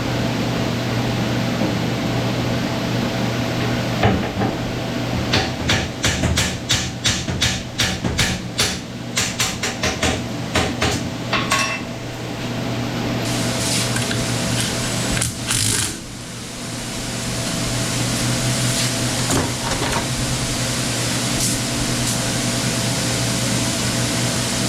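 Hand tools clicking and knocking against metal machine parts, a quick run of sharp taps about two a second for several seconds, over a steady machine hum.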